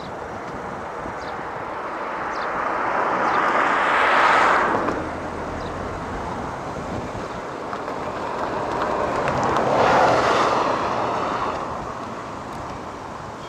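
Road and wind noise from a moving car, swelling twice, about four and ten seconds in, as vehicles pass close by.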